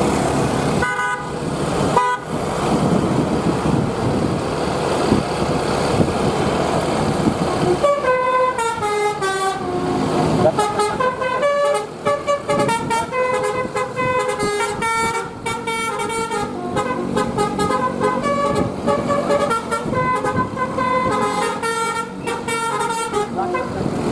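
A bus running, with two short horn toots about one and two seconds in. From about eight seconds in, its basuri telolet horn plays a melody of quick stepped notes until the end.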